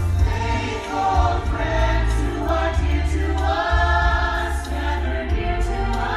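Holiday show music played loud over a sound system, with a choir singing long held notes over a heavy, steady bass.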